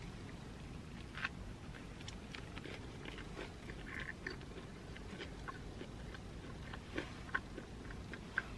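A person biting into a crispy chicken sandwich and chewing, with faint scattered crunches and mouth clicks.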